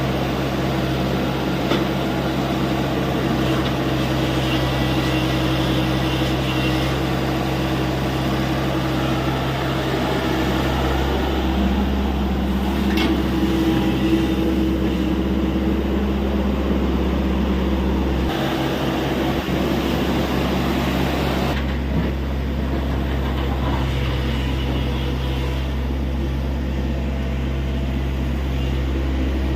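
Tata Hitachi EX70 excavator's diesel engine running steadily under digging load, its hum shifting as the hydraulics work, with the deep rumble dropping away briefly about two-thirds of the way through before coming back.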